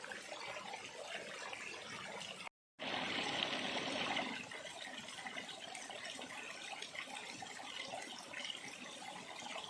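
Small shallow river trickling and babbling steadily over stones. About two and a half seconds in the sound cuts out for a moment, then comes back louder for a second or so before settling to the steady flow.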